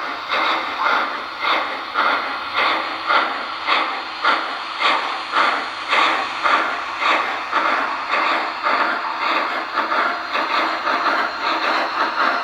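Sound systems of HO-scale MTH 2-8-8-8-2 Triplex model steam locomotives giving a steady run of steam-exhaust chuffs with hiss, about two a second, through small on-board speakers with no deep bass.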